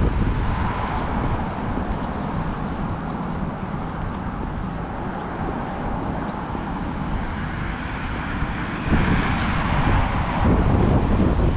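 Urban street ambience: steady traffic noise, with wind on the microphone, growing louder about nine seconds in.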